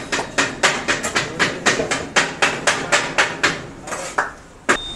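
Rapid knife or cleaver chopping on a cutting board, about four strokes a second. The chopping stops about three-quarters of the way through, and one last chop comes near the end.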